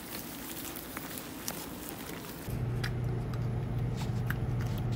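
Light outdoor ambience with scattered soft clicks and taps. About halfway through it gives way abruptly to a steady low machine hum with occasional faint taps.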